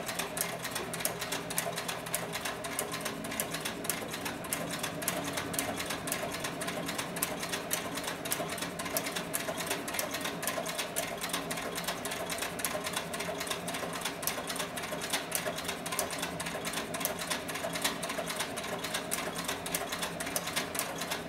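Cowboy CB4500 heavy-duty leather stitcher, driven by a DC servo motor through a gear reducer, sewing through two layers of saddle skirting leather at speed with the pedal pressed well down. A fast, even clatter of needle strokes runs over a steady mechanical hum.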